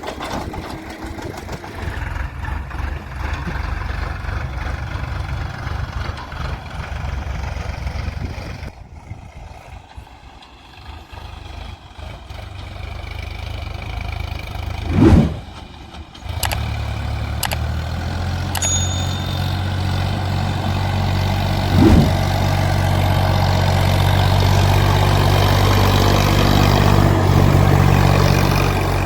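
Heavy diesel engine of a tractor or backhoe loader running. It drops away for a few seconds, builds back up, and then holds a steady, strong hum. Two short loud bumps stand out, about halfway through and again a few seconds later.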